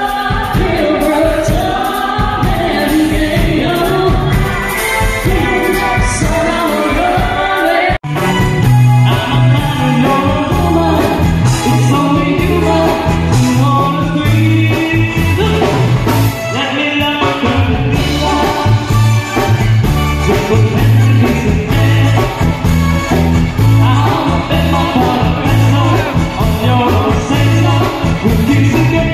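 Loud amplified music with singing through PA speakers; it breaks off abruptly about eight seconds in and resumes as a live band with a singer, keyboard, electric guitar and a heavy repeating bass line.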